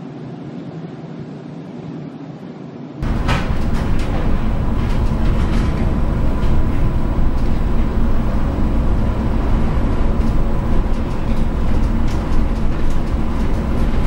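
Storm wind and heavy-sea noise aboard a container ship: a steady, muffled rumble that jumps suddenly to a much louder, dense low rumble about three seconds in.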